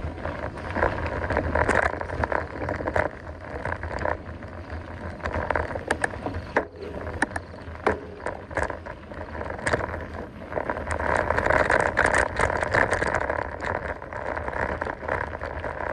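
Mountain bike rolling along a dirt trail, with a steady rush of tyre noise and many sharp clicks and rattles as it goes over bumps.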